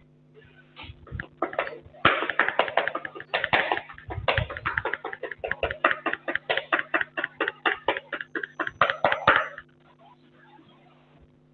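Chalk on a blackboard: quick taps and short scraping strokes as a diagram is drawn, about five a second at their busiest, stopping near the end.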